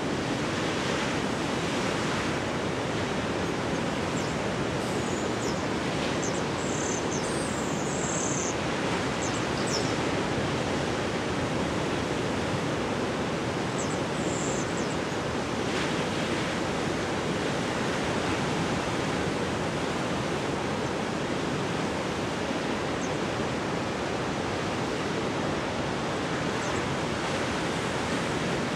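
Ocean surf breaking on a rocky shore, a steady, even rush of waves with no let-up.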